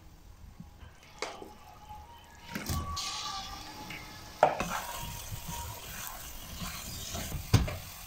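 Spinach and potato curry sizzling gently in a frying pan, with a spoon knocking and scraping against the pan a few times as it is stirred.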